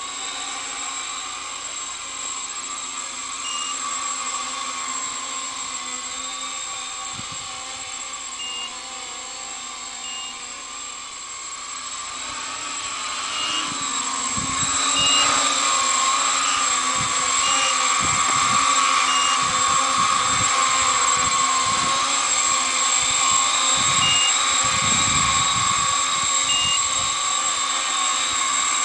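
Homebuilt quadcopter's four brushless motors and three-bladed props running with a steady whine. It grows louder about halfway through as the craft comes close, with gusty low buffeting on the microphone from then on.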